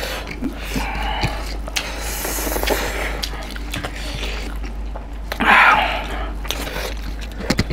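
Close-miked eating: smacking, chewing and small wet clicks as two people eat rice and beef curry with their hands, with a louder noisy sound about five and a half seconds in. A low steady hum runs underneath.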